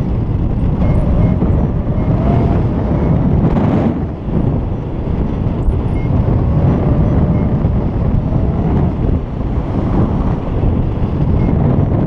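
Wind rushing over the camera microphone in paraglider flight, a steady loud buffeting that eases briefly about four seconds in.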